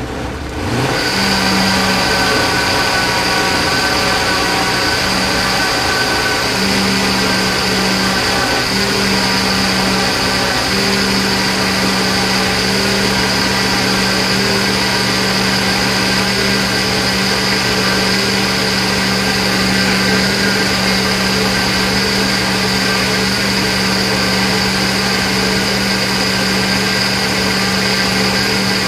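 Countertop blender motor running on a liquid vegetable soup, pureeing in onions and garlic. It spins up in the first second, then holds a steady hum with a high whine on top.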